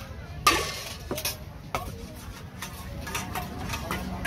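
Food-stall kitchen clatter: a handful of sharp knocks and clicks of utensils and containers being handled, the loudest about half a second in, over a steady low background hum.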